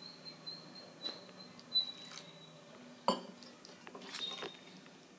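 Metal spoon stirring flour and water in a stainless steel bowl, scraping and clinking against the steel now and then, with the sharpest clink about three seconds in.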